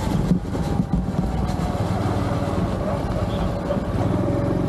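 A Honda Trail 125's single-cylinder four-stroke engine running steadily while the motorcycle is ridden along a dirt trail. A thin whine that drifts slowly lower sits over the engine note.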